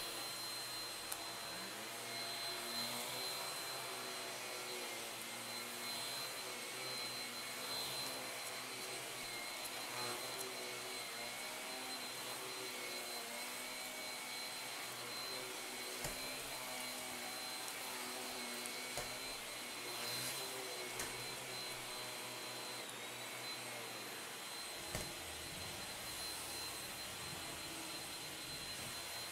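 Cordless stick vacuum with a powered floor head running steadily, with a high motor whine, as it is pushed over a rug and bare floor sucking up spilled cat litter. A few sharp clicks come through as litter grains are pulled up the wand, heard close up from a mic wrapped around the wand.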